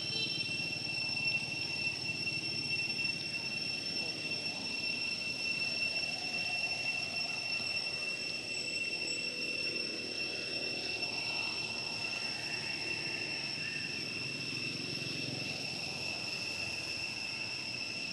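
Insects keep up a continuous high-pitched drone on one steady pitch, over a low, steady background rumble.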